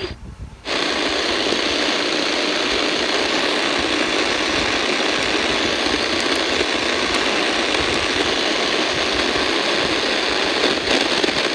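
Steady hiss of static from a V115 portable AM/FM/SW radio's speaker while it is off-station, a new frequency being keyed in. The sound cuts out for under a second at the very start before the hiss comes up.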